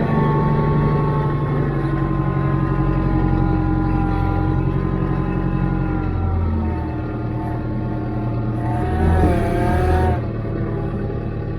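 Branson compact tractor's diesel engine running steadily under way. It surges louder and higher about nine seconds in, then drops back a second later.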